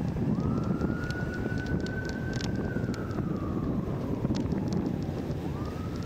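A siren wailing slowly: its pitch rises quickly, holds high for about two seconds, slides down over the next few seconds, and rises again near the end. Heavy wind rumble on the microphone runs under it.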